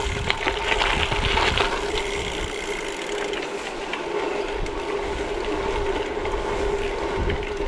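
A bicycle rolling along, heard from the rider's own bike. Rattles and knocks in the first two seconds as it comes off the gravel driveway onto the paved road, then steady rolling noise with a constant hum from the bike's mechanism.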